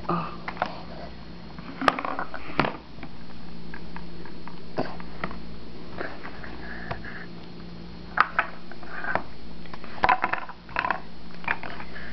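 A baby's small wordless vocal sounds and breaths, with several sharp taps or knocks, over a steady low hum.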